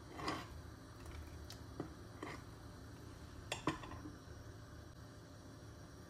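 A stainless steel ladle stirring thick puréed lentil soup in a coated pot with a soft slosh, followed by a few light metal clinks against the pot, the last and loudest as the ladle is laid against the rim.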